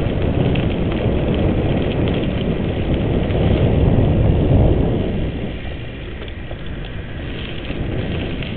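Wind rushing over the microphone with tyre rumble as a mountain bike is ridden along the course; the rush eases about five seconds in.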